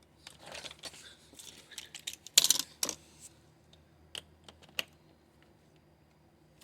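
Small metal engine parts and hand tools clicking, rattling and scraping as a carburetor is fitted back onto its mounting studs, with a louder scrape about two and a half seconds in and a couple of sharp clicks after it.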